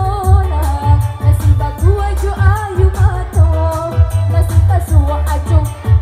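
A woman singing into a microphone over loud amplified pop music with a heavy, steady bass beat.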